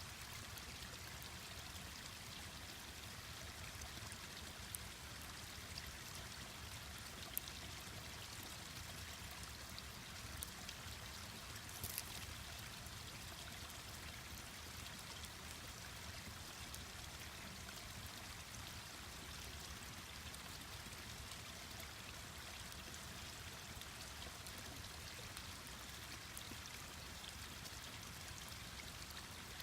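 Mountain stream rushing steadily, with a few sharp crackles and pops from a wood campfire.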